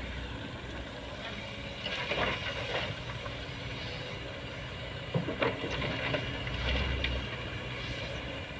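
Diesel engines of a Sany crawler excavator and a six-wheel dump truck running steadily while the excavator loads coal into the truck. Louder clattering and scraping noises come about two seconds in and again around five to seven seconds in, with a few sharp knocks near five seconds.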